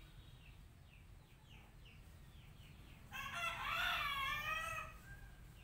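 A rooster crows once, one long wavering call of about two seconds starting about three seconds in. Before it, faint short chirps repeat a few times a second.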